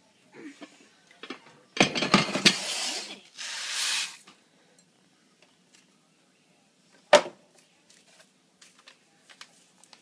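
Dry rice poured from its cardboard box into a glass bowl: a dense rattling clatter for about a second and a half, then a shorter hiss as the last grains run out. About seven seconds in, one sharp knock, the box being set down on the stovetop.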